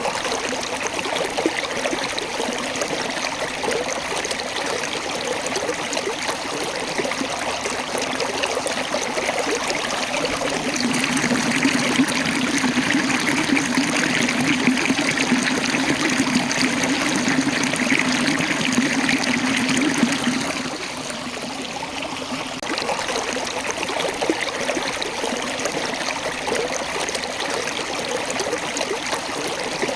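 Waterfall water running over and between rocks: a steady rushing that swells louder from about eleven seconds in and falls back a little after twenty.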